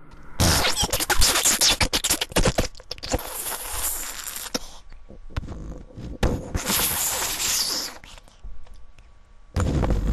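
Comic spluttering fart sound effect in three long crackling bursts: one of about four seconds, a shorter one in the middle, and another starting near the end.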